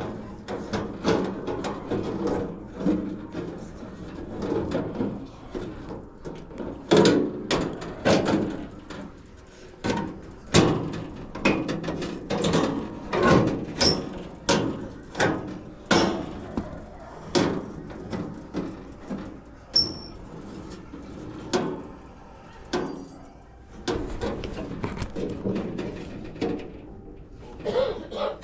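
Irregular knocks, clanks and bumps of hands and tools working on sheet-metal furnace parts, a few sharp hits every second at times.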